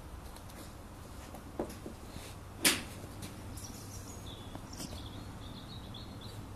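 Two short, sharp clacks of a golf ball and club being handled on a driving-range mat while a ball is teed up, a light one and then a louder one nearly three seconds in.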